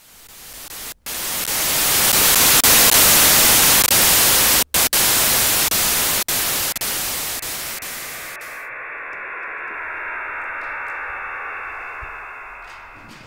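Sci-fi teleport (beam-up) sound effect: a loud static-like hiss swells up over a couple of seconds, broken by two brief dropouts. About eight seconds in, its highest part cuts off and a softer rushing sound fades away.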